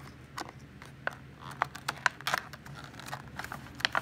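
A small cardboard toy box being opened by hand: its flaps and packaging scrape, tear and crinkle in a string of short, irregular clicks and scrapes.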